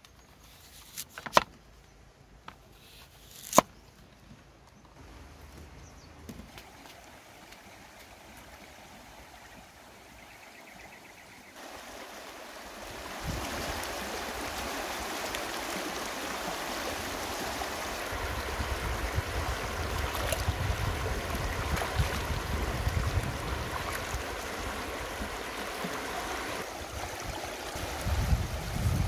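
A few sharp chops of a cleaver through peeled taro onto a wooden chopping block. About twelve seconds in, a shallow rocky stream starts rushing steadily, with water splashing near the end as the taro is rinsed by hand.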